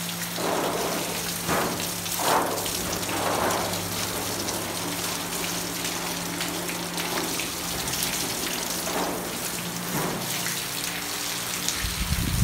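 Water jet from a hose spraying into wire-mesh cages and onto civets, a steady rushing splash on the mesh and floor. A steady low hum runs under it and stops near the end.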